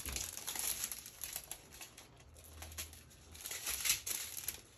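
Small clear plastic bags of diamond painting drills crinkling as a strand of them is handled and moved about, loudest near the start and again about four seconds in.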